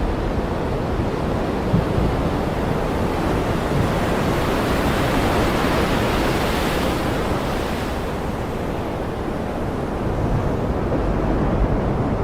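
Ocean surf with waves washing ashore in a steady rush; one wave swells up about a third of the way in and sweeps back down, another building near the end, over a continuous low rumble.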